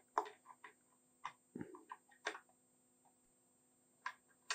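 Faint scattered clicks and light scrapes of a small screwdriver prying a stubborn fuse out of its clips in the fuse compartment of a Simpson 270 analog multimeter, with one duller knock a second and a half in.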